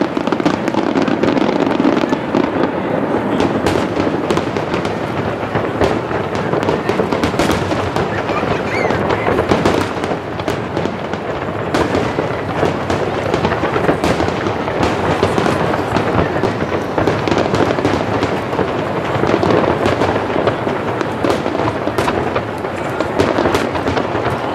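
Aerial firework shells bursting in rapid succession, with many sharp bangs and crackles overlapping into a dense, continuous barrage.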